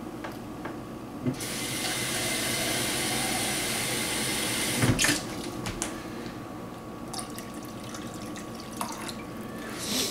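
Hot tap water pouring into the stoneware crock of a slow cooker around a pork roast, a steady splashing hiss from about a second in. About five seconds in it drops off sharply with a knock, and softer pouring goes on.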